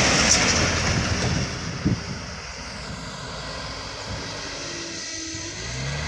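Isuzu Elf light truck's diesel engine and tyres passing close by, then fading as it drives away. Near the end a second vehicle's engine approaches, its pitch rising.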